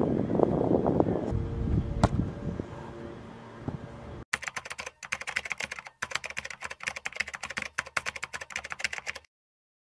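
Wind noise on the microphone with a sharp knock about two seconds in, then, from about four seconds in, a rapid keyboard-typing sound effect clattering for about five seconds and cutting off suddenly into silence.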